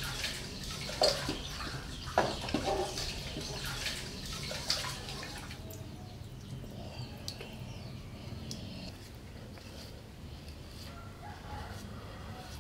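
Rice being washed by hand in an aluminium pot: grains stirred in water and the water poured off, with a few sharp knocks of the pot in the first half.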